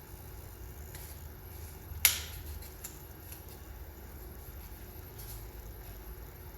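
Laser-cut balsa bulkhead being worked into a model rocket body tube, a very tight fit: faint handling and rubbing, with one sharp click about two seconds in.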